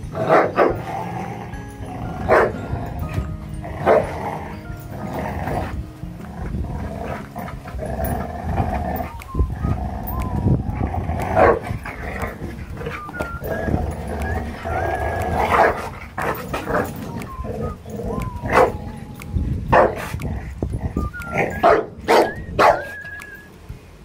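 Two large pit bull–mix dogs growling at each other while tugging over a cloth toy, with about a dozen short, sharp barks and snarls, several in quick succession near the end.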